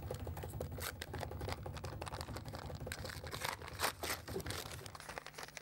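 A low drum roll runs under the crinkle and tear of a paper envelope being opened, with a few sharper rips about four seconds in. The roll stops about five seconds in.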